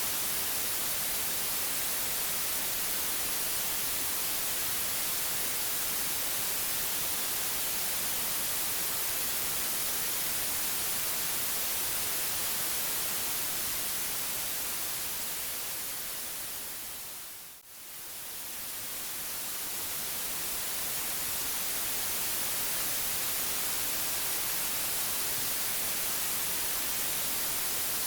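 Steady white noise, an even hiss across all pitches and brightest at the top. About two-thirds of the way through it fades down over a few seconds to almost nothing for an instant, then swells back up to full level.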